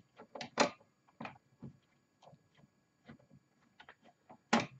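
Scattered light clicks and taps of hands handling loosened parts and screws inside an opened synthesizer, a few louder knocks among faint ticks.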